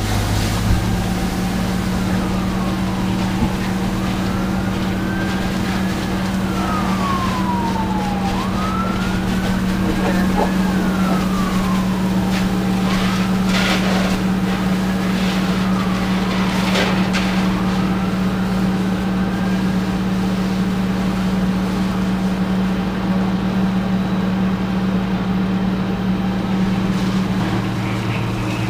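An emergency vehicle's siren wailing, sweeping slowly up and down in pitch several times before fading out after about twenty seconds, over a steady low engine drone.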